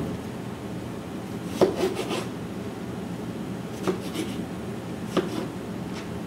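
A chef's knife slicing through an eggplant on a white plastic cutting board, with short clusters of knocks and rasps as the blade cuts through and meets the board, about a second and a half in, near four seconds and again about five seconds in.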